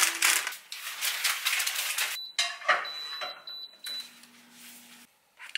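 Rustling and clattering of a salmon steak being handled on paper beside a plastic salad container for about two seconds, then a thin, steady high electronic tone lasting about a second and a half, followed by a lower hum for about a second.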